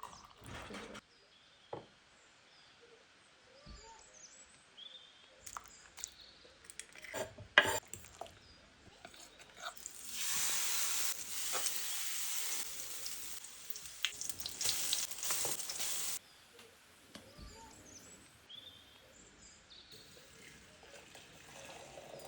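Breakfast being made: scattered kitchen clicks and knocks with one loud clack about seven and a half seconds in, then about six seconds of food sizzling in a hot pan that cuts off suddenly. A few faint bird chirps come through in the quieter stretches.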